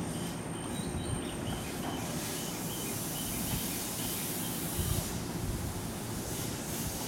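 Wind buffeting the microphone with a heavy, uneven rumble, over the steady running noise of a JR 209 series electric commuter train standing at the platform. A higher hiss swells about two seconds in and fades about five seconds in.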